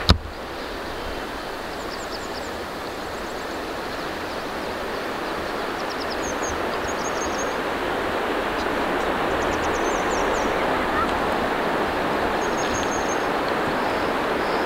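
A steady rushing hiss of outdoor ambience, like wind or flowing water, slowly growing louder, with a few faint, short, high bird chirps over it.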